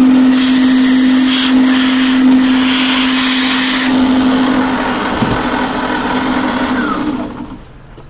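Drill press converted to a milling machine, its motor and spindle running steadily at high speed with a hiss on top that is stronger for the first few seconds. It is switched off and winds down about seven seconds in.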